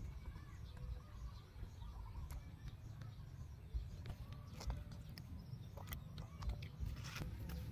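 A monkey eating watermelon: scattered wet clicks of biting and sucking at the flesh, thickest in the second half, over a low rumble, with a few faint bird chirps early on.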